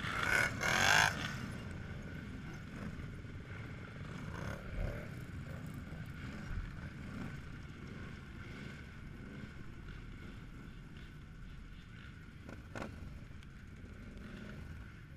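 ATV engines idling at a race start line, led by the Can-Am Renegade 1000's V-twin under the rider. Near the start an engine revs briefly and falls back to idle, and there is a short sharp knock near the end.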